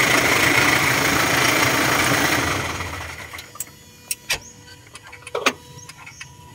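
Toyota Hiace diesel engine idling steadily with its new fuel filter fitted and primed, then shutting off about three seconds in. A few light clicks follow.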